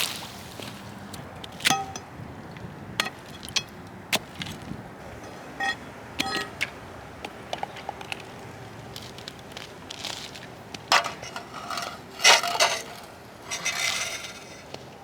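Scattered sharp knocks and taps on frozen water ice, several with a short ringing ping, from someone walking out and testing whether the ice is safe. Louder crunching steps come about ten to thirteen seconds in.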